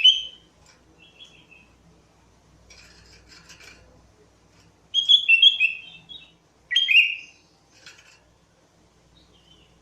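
Sooty-headed bulbul singing: short bubbly phrases of a few quick whistled notes, the loudest about five and seven seconds in, with softer rapid chattering between.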